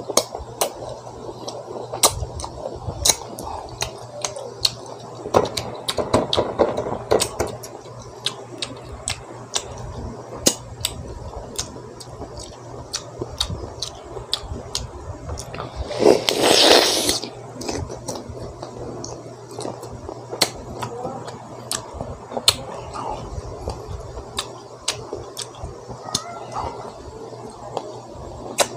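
Mouth sounds of a person eating mango: irregular wet smacks and chewing clicks as he bites and sucks the flesh off the fruit. About sixteen seconds in comes a louder noise lasting about a second.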